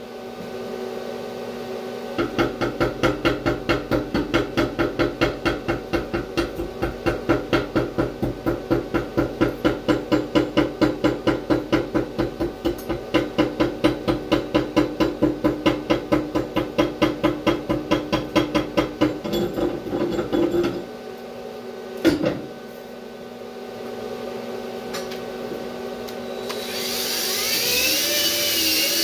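A chipping hammer knocking slag off a stick weld bead in a steady run of about three strikes a second, over a constant hum, stopping about two-thirds of the way through. One more knock follows, then near the end a welding arc starts up with a loud hiss.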